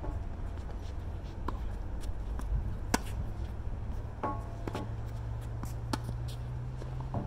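Tennis rally: a series of sharp strikes of the ball off racket strings and bounces on the court, a few seconds apart, the loudest about three seconds in, over a steady low rumble.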